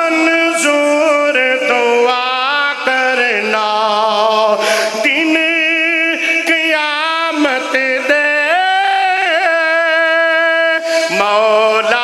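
A man singing a Punjabi naat, drawing out long held notes with wavering, ornamented turns between them.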